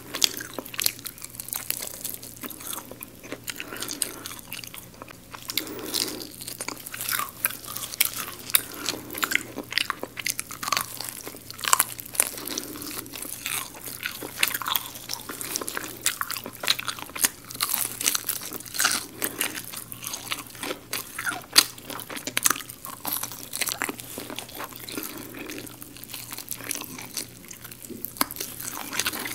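Crispy garlic fried chicken being bitten and chewed: the crisp fried coating crackles and crunches again and again, with softer chewing sounds in between.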